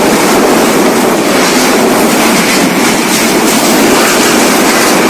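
Cyclone-force wind and driving rain making a loud, steady rushing noise.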